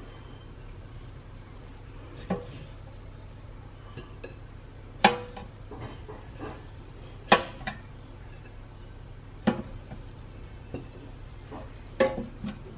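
Scattered clinks and taps of kitchen handling as bacon-wrapped cheese strings are set into an air fryer basket from a plate: about six short, sharp knocks a second or two apart, over a low steady hum.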